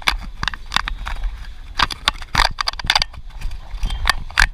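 Irregular sharp clicks and knocks, several a second, from walking footsteps and fingers handling the camera, over a steady low rumble.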